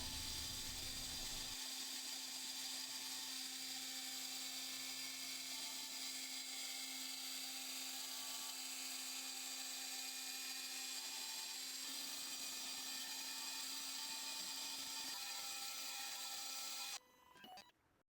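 Desktop PCB milling machine's 50,000 RPM spindle running steadily while milling copper-clad board, a faint high whine with hiss. It cuts off suddenly near the end.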